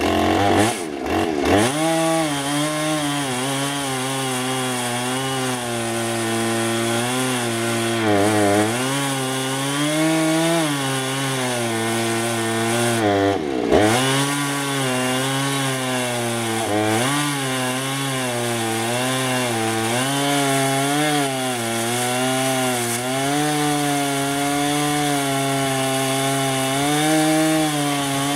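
Husqvarna Rancher 455 two-stroke chainsaw at full throttle on a chainsaw mill, ripping lengthwise through a very hard sugar maple log with a 24-inch bar and ripping chain. The engine labours under the load: its pitch wavers and dips briefly about 8 and 14 seconds in, then climbs back.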